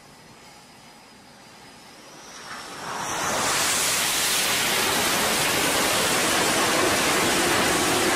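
Carrier fighter jet at full power on a catapult launch: a loud, steady jet roar swells in about three seconds in and holds, after a quieter hiss.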